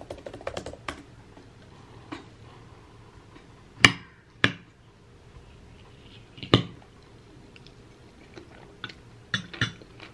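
A metal spoon clinking against a glass bowl in a few sharp, separate clinks, with quiet chewing between them.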